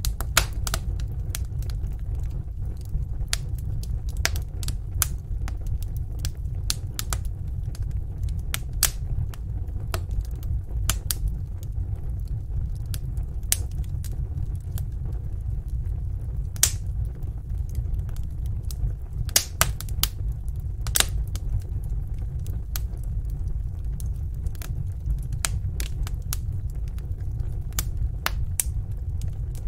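Wood fire burning in a fireplace: a steady low rumble of the flames with sharp, irregular crackles and pops, several a second, some louder snaps scattered through.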